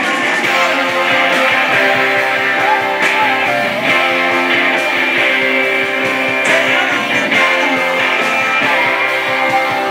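Live rock band playing an instrumental passage, with electric guitars and electric bass.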